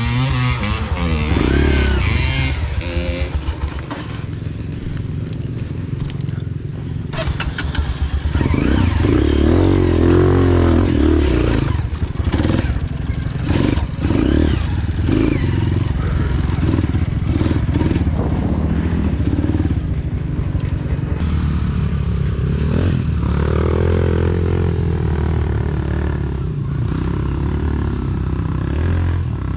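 Off-road trail motorcycle engine running under load, the revs rising and falling again and again, with scattered knocks.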